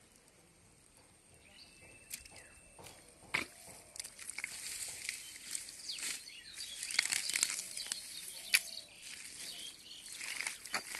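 Grass and weeds rustling and tearing as they are pulled up by hand from wet mud, in quick crackles and rips. It begins about three seconds in and grows louder.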